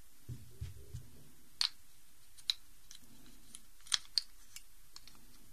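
Plastic Rubik's cube pieces clicking as they are pressed back into the cube one by one while it is put back together after being greased with soap. A few soft knocks come first, then about four sharp clicks spread over the next few seconds.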